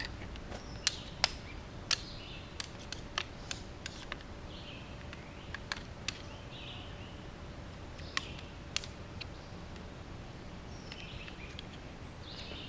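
Sharp clicks and clacks of a camp chair's frame being pulled apart, irregular and bunched in the first few seconds, with two more later on.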